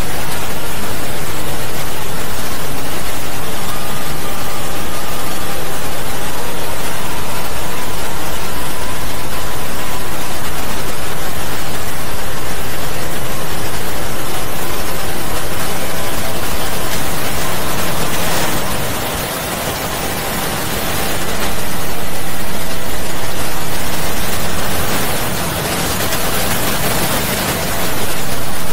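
A loud, dense wash of noise with faint steady tones running through it, easing off briefly twice in the last ten seconds.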